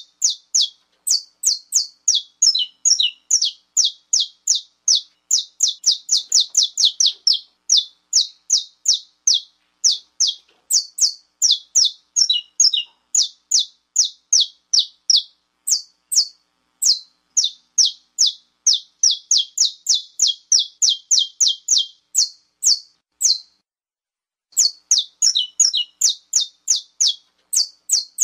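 Saffron finch (canário-da-terra) giving its 'estalo' call: a fast run of sharp, high, downward-slurred chip notes, about four a second, with a break of about a second near the end.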